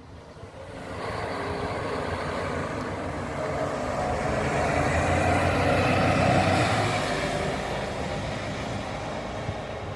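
A vehicle passing close by: its noise swells from about a second in, peaks around six seconds in, then fades away.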